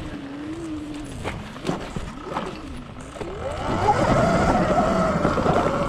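Sur Ron Light Bee X electric dirt bike's motor whine, falling and rising in pitch with the throttle, then climbing steeply and getting louder about three seconds in as the bike accelerates. It runs over a low rumble, with a few short knocks along the way.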